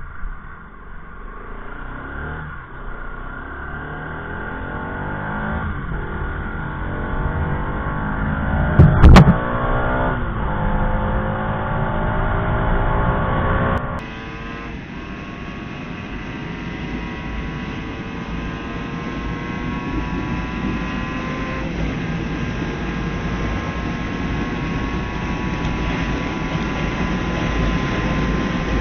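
Motorcycle engine under way, rising in pitch as it accelerates through the gears. A single sharp, loud knock comes about nine seconds in.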